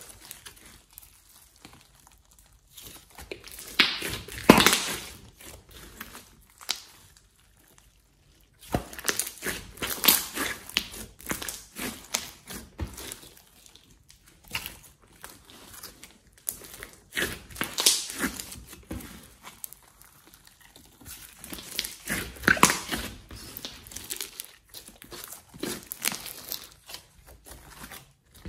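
Hands squeezing, stretching and folding a large batch of slime mixed with floam beads and clay, giving irregular bursts of crackling and squishing with short pauses between handlings.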